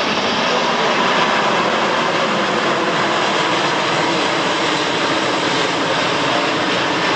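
Airbus A380 jet airliner flying low overhead, its four turbofan engines giving a loud, steady jet rumble as it banks away.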